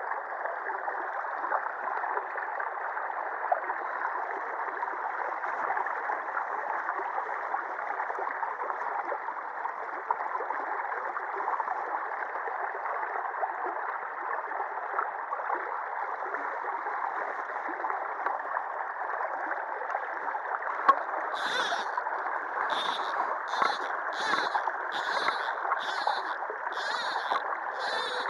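Shallow river water rushing steadily over and around a low concrete sill. Near the end, a run of about nine short, high-pitched rasps comes at roughly two a second.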